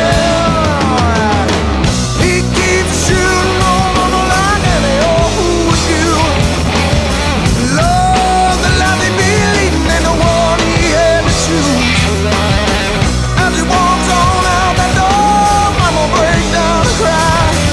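Heavy metal band playing loudly: a distorted electric guitar lead with bent, wavering notes over rhythm guitar, bass and drums.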